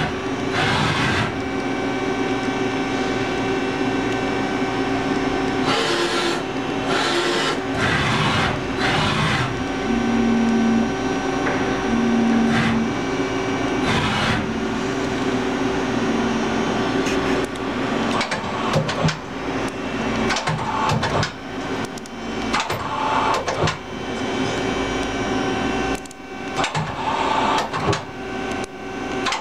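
Leadwell LTC-10AP CNC lathe running: a steady mechanical hum with several held tones. Several short hissy bursts come in the first half, and quick clicks and clunks of moving parts fill the last third.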